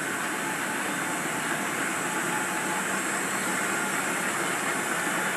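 Taiyo Seiki Model 4T big bore turret lathe running, a steady mechanical hum and whir with no change in speed.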